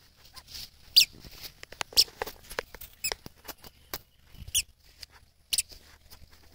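A toddler's squeaky sandals squeaking with each step, a short high chirp about once a second as the child walks.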